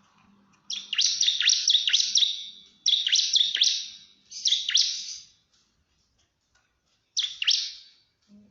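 Bar-winged prinia (ciblek) singing its rapid-fire 'nembak' song to call a rival: four bursts of quick, high, downward-sweeping notes with short pauses between them, the last after a longer gap.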